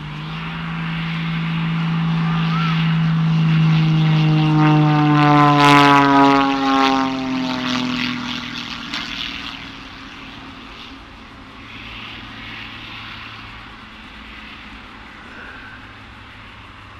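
Extra 330 aerobatic monoplane's propeller engine growing louder as it flies past close by, its pitch dropping as it passes about six seconds in, then settling to a quieter steady drone.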